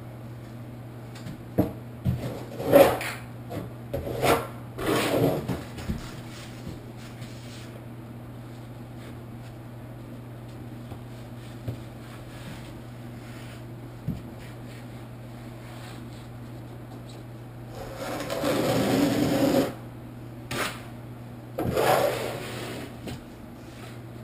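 Steel trowel scraping and spreading thinset mortar on foam waterproofing board, in a run of short strokes, then a longer stroke and another near the end, over a steady low hum.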